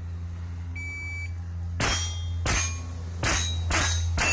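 Shot-timer start beep, then five quick shots from a CBC 7022 .22 semi-automatic rifle, each followed by the ring of a hit steel plate. The beep comes about a second in, and the shots come roughly half a second apart from just under two seconds in.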